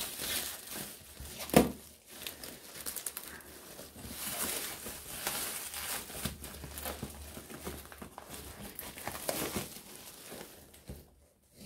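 A clear plastic bag and yellow paper parcel wrapping being crinkled and torn open by hand: an uneven crackling, with one sharp louder noise about one and a half seconds in.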